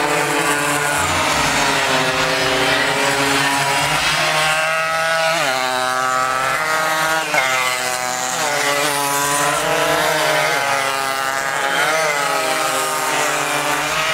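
Small two-stroke Suzuki AX100 racing motorcycles revving hard. The engine pitch climbs and drops back again and again as the bikes are ridden through the corner.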